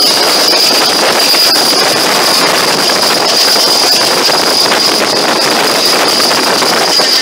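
Moving passenger train heard from an open window: a loud, steady rush of wind and wheels on the track, with a steady high-pitched hiss over it.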